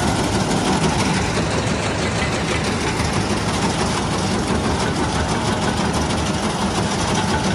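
Farm tractor engine running steadily close by, together with the rattle of forage wagon and silage bagger machinery working.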